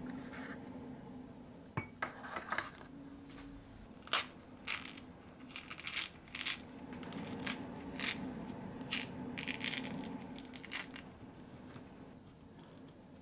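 Hands peeling a mandarin orange, the peel tearing away from the fruit in a run of short rasping bursts. A few sharp clicks come before it, about two and four seconds in.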